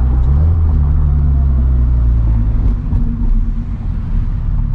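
Turbocharged Scion FR-S's flat-four boxer engine running under light throttle while cruising, heard from inside the cabin. It holds a steady low drone, then eases off and drops a little about three seconds in.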